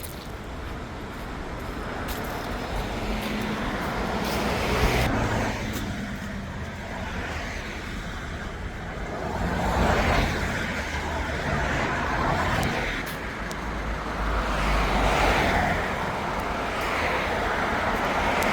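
Road traffic noise: vehicles going past, the rushing sound swelling and fading several times.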